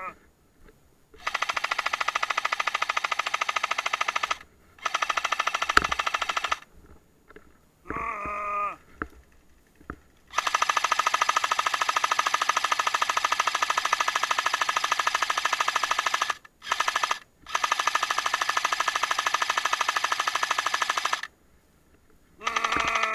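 Airsoft light machine gun firing long bursts of very rapid, evenly spaced shots, five bursts in all, the longest about six seconds. A short groaning voice comes in one of the gaps, and another starts at the very end.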